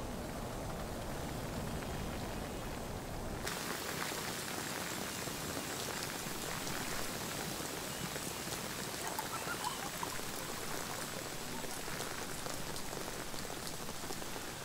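Steady rainfall. About three and a half seconds in, the sound abruptly changes to a brighter, thinner rain with less low rumble.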